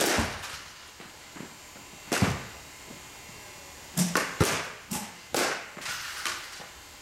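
Softball bats hitting pitched balls in batting cages: a series of sharp cracks and thuds from two batters, with the hardest hits near the start and about two seconds in, and a quicker run of hits in the last few seconds.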